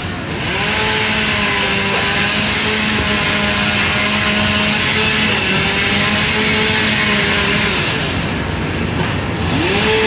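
A large engine running loud and steady, its pitch sagging and rising as the load changes, over the noise of demolition work on a burned roof. One brief knock comes about two seconds in.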